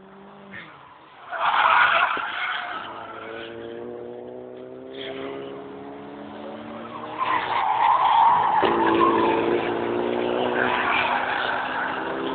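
Race cars on a circuit: tires squeal briefly about a second in, then an engine accelerates with a steadily rising note. Around the middle the tires squeal again, louder, and an engine note steps and climbs once more.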